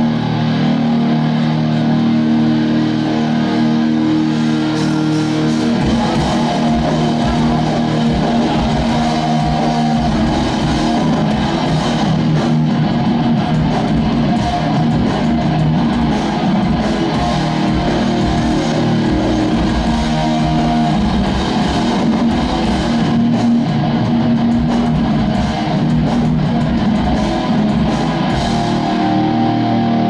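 Hardcore metal band playing live with loud distorted electric guitars. The heavy low drums and bass guitar come in about six seconds in and drive on from there.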